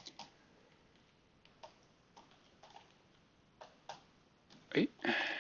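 A scattering of faint, irregular clicks from a computer input device while a brush list is browsed and brushes are selected in a painting program. A short vocal murmur comes near the end.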